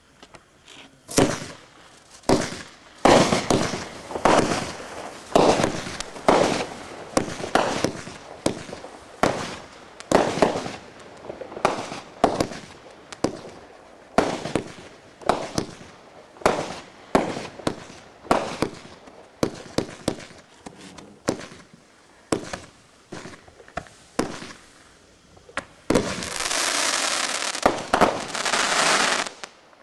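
Kimbolton Glistening Autumn Willow 30-shot fan barrage firework cake firing its comets one after another, a sharp shot every half second to a second. For the last few seconds it gives a dense burst of crackling from chrysanthemum bombettes and crackles, which stops suddenly.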